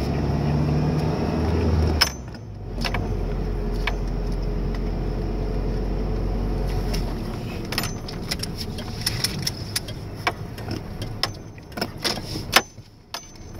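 Engine of a manual-shift Ford truck running from inside the cab during slow driving, its note changing and dropping about two seconds in, with light jingling, rattling clicks throughout.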